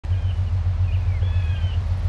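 Boat engine running with a steady, evenly pulsing low rumble, with a few faint high gliding calls above it.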